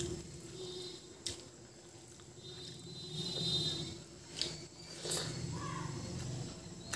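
Fingers squishing and mixing rice with dal on a paper plate, with close-up chewing and mouth sounds and a few sharp clicks.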